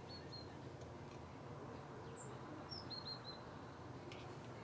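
Faint bird chirps, a few short high calls, some in quick runs of three, over a steady low background hum, with a few faint clicks.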